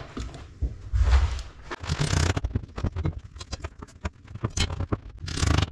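Irregular clicks, knocks and scrapes of tools and wood being handled on a plywood workbench during a panel glue-up, with a low rumble underneath.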